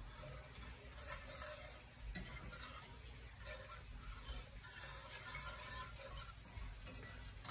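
Wire whisk stirring thick bacon gravy in a cast iron skillet: faint, irregular swishing and scraping with light clicks of the wires against the pan.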